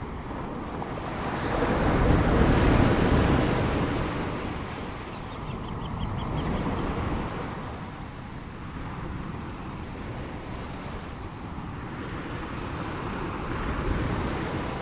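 Ocean waves breaking and washing in, rising and falling in surges. The biggest wave crashes about two seconds in, with smaller swells later.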